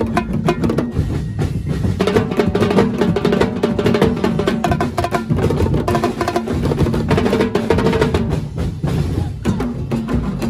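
Large street drum ensemble in the Dinagyang style, many drummers beating big bass drums and other drums with sticks together in a fast, continuous, driving rhythm.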